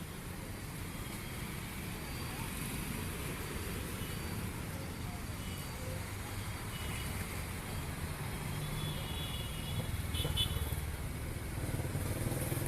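Street traffic: a steady rumble of vehicle engines that grows a little stronger in the second half, with a few short high-pitched sounds over it.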